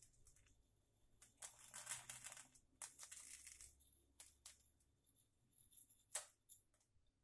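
Faint rustling and grainy crackle of coarse salt being scattered over sardines to cover them, in two short spells about one and a half and three seconds in, with a few light ticks afterwards.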